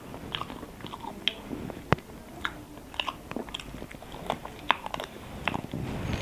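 A person chewing and biting food, with a run of short irregular mouth clicks and one sharper click about two seconds in.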